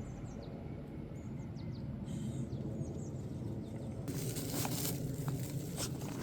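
Outdoor ambience with a steady low rumble and faint high chirps of small birds, then footsteps from about four seconds in.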